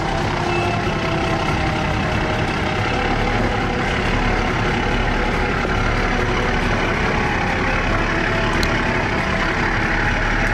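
Nissan Patrol 4x4's engine running steadily, with no clear rise or fall in pitch, as it tries to crawl up a rock obstacle.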